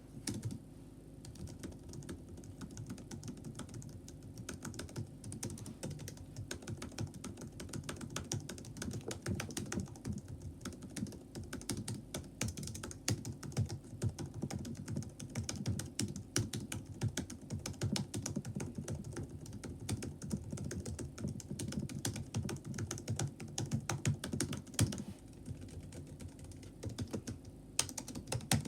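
Typing on a Chromebook laptop keyboard: a steady run of quick, irregular key clicks with short pauses.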